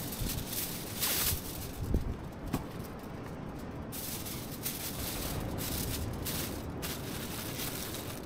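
Aluminium foil crinkling and rustling as potatoes are wrapped in it by hand, in irregular bursts.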